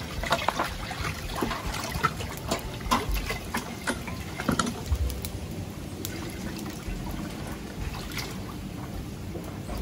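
Water trickling and splashing, with scattered sharp clicks and knocks during the first half.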